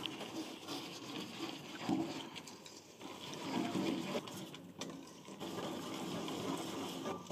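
Wire balloon whisk beating flour and water into batter in a stainless steel bowl: quick, rhythmic scraping strokes of the wires against the metal.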